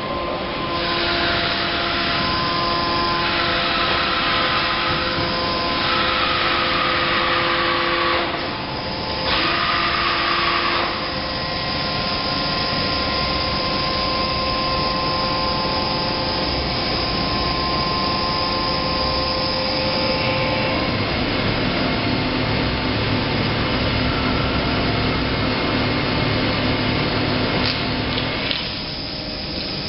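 Overhead bridge crane working an orange-peel grab in wood chips: a steady mechanical whine of its motors with several held tones, as the grab closes on a load of chips and hoists it. A deeper hum joins about two-thirds of the way through, and the sound drops away shortly before the end.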